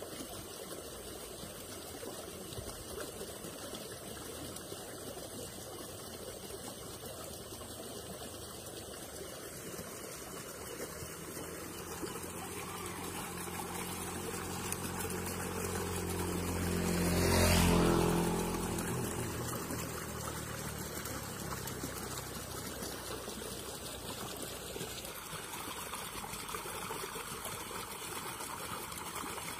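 Steady trickle of flowing water, with a motor vehicle passing by: its engine hum swells from about a third of the way in, peaks a little past halfway, then fades away.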